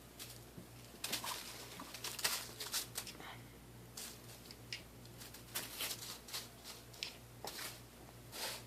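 A rolled-up bag rustling and crinkling in irregular bursts as a Bengal cat bats at it and pounces on it.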